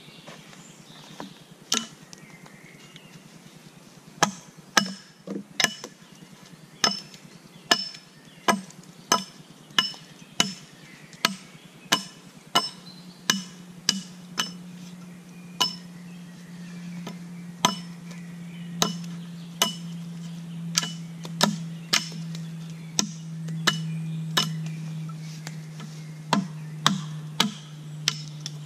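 Axe blows on a wooden pole, a long, fairly even run of sharp knocks about one every half-second to second, each with a brief ringing tone from the metal head.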